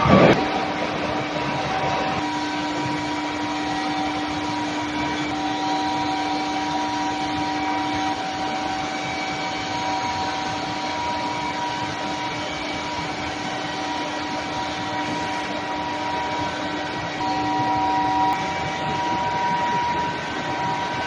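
Steel pipe induction hardening line running: a steady industrial hum with several held tones over a machine noise. There is a short loud screech right at the start.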